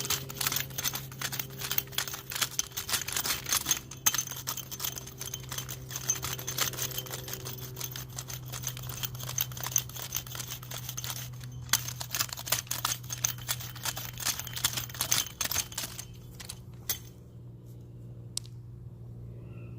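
Gritty scraping and crunching of soil being worked by hand, in quick rough strokes that pause briefly twice and stop about 16 seconds in. A steady low hum runs underneath.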